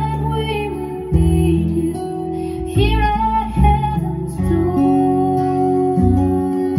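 Recorded song played over JBL 4344 studio monitor speakers driven by a Sansui AU-D907F amplifier, heard in the room: acoustic guitar over a bass line, with a sung melody that rises into new phrases near the start and about three seconds in.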